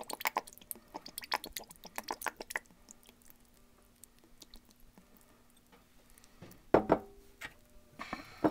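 Soy sauce glugging and splashing out of a bottle into a saucepan of honey, a quick run of wet clicks for about the first two and a half seconds. After that a faint hum, then a single knock about two thirds of the way through.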